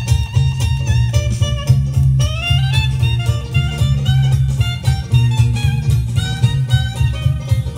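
Music from a vinyl test record playing on a Technics SL-2900 turntable fitted with a Technics 270C cartridge, reproduced in stereo with a steady, pulsing bass line.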